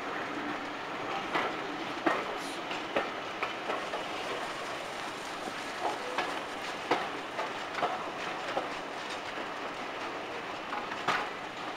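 Railway carriage wheels rolling slowly over rail joints and points, with irregular clicks and knocks over a steady running noise.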